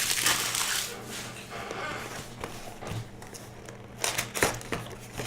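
Foil and plastic wrappers of a baseball card hobby box crinkling and rustling as it is opened, loudest in the first second, with a few sharp clicks and taps later on.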